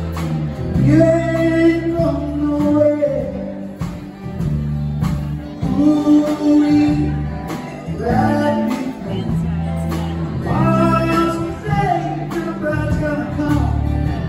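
Live band playing a song: electric guitar, acoustic guitar, electric bass and a drum kit keeping a steady beat.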